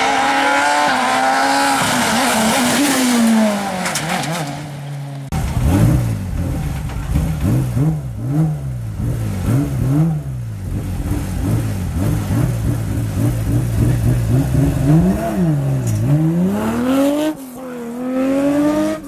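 Rally car engines at high revs. One drops in pitch over the first few seconds, then after a cut another car's engine revs rise and fall again and again as it is driven hard through gear changes and lift-offs.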